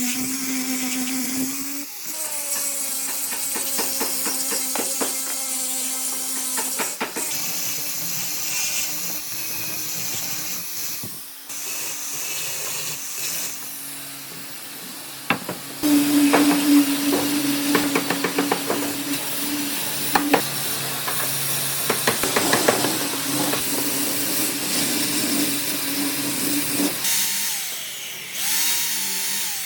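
Electric power tool working wood, its motor giving a steady hum that stops, restarts and changes pitch several times. It is loudest in the second half.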